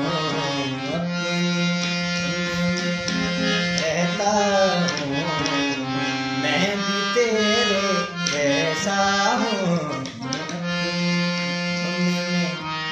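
A man singing to his own harmonium accompaniment. The harmonium reeds hold steady chords while the voice glides and ornaments between notes in long phrases.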